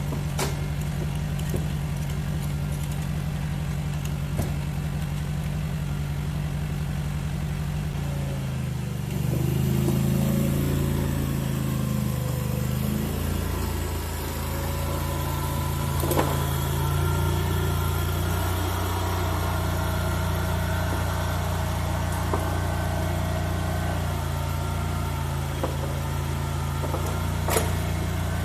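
Mini skid steer's small engine running steadily. Its speed shifts and rises for a few seconds about nine seconds in, then settles again. A couple of sharp knocks come later.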